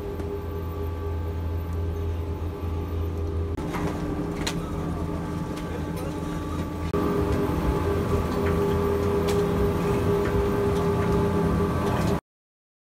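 Detachable gondola lift's top-station machinery running: a steady hum with several held tones, with occasional clicks and knocks as cabins pass through the station. The hum changes character twice and cuts off suddenly near the end.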